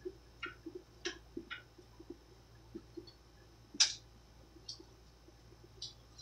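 Fidget spinner spinning flat on a wooden table, giving soft, irregular ticking several times a second with a few sharper clicks, the loudest about four seconds in.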